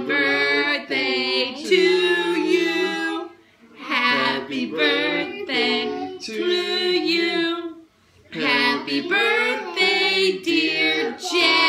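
A woman, a man and young children singing together unaccompanied, in long held phrases, with short breaks about four and eight seconds in.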